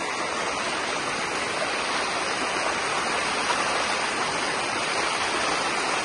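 Fast-flowing floodwater rushing steadily as it spills across a road.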